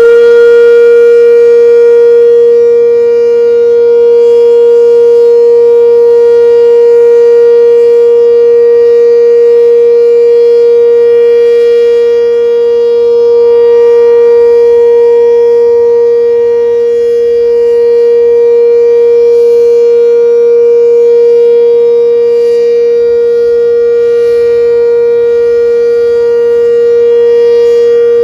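Sentry 7V8 eight-port omnidirectional outdoor warning siren at full speed, holding one loud, steady tone with slight swells in loudness: the steady Alert signal, sounded on test.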